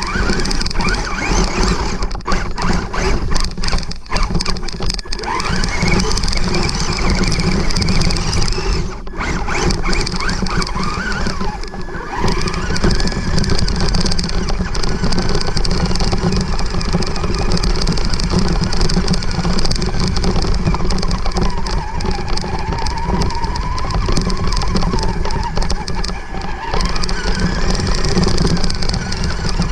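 Traxxas 1/16 Summit RC truck driving through long grass: the electric motor and drivetrain whine, rising and falling in pitch as the throttle changes, under a constant loud rustling of grass brushing the truck and the onboard camera.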